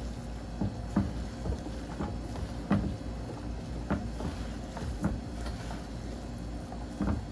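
Lo mein noodles and vegetables being tossed and mixed in a pan: irregular clacks and scrapes of the utensil against the pan, about one a second, over a steady low rumble.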